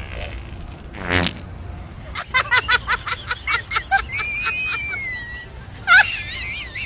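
A short fart sound about a second in. It is followed by high-pitched voices in quick repeated bursts and squeals, with a loud sharp cry near the end.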